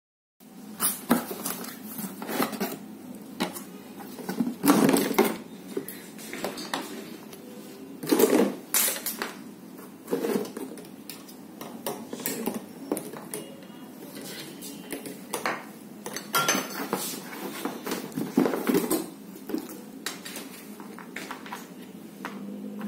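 Hard plastic parts of an electric spray machine being handled in and out of a cardboard box and set down on a table: irregular clatter, knocks and rustling, with a few louder thumps about 5, 8 and 18 seconds in.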